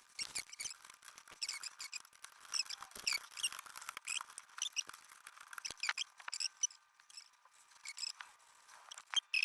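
A wipe rubbing old thermal paste off a CPU's metal heat spreader, squeaking in many short, high, irregular chirps with a few light clicks.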